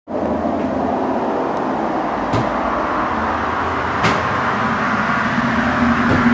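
Storm sound effect: a loud, steady rushing rumble, like a passing train, that cuts in suddenly out of silence and swells slightly, with a few faint clicks.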